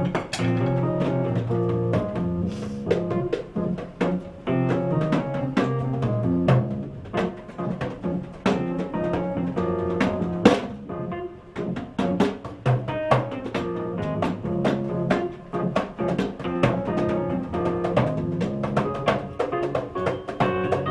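Live piano and drum kit playing together in a jazzy pop song: chords and melodic runs on the piano over a steady pattern of drum and cymbal hits.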